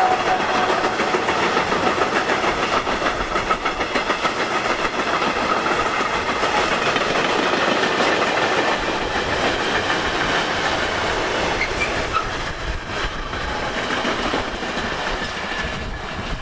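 Freight train wagons rolling past at speed: a steady noise of steel wheels on the rails with regular clacks from the wheelsets, easing off slightly toward the end.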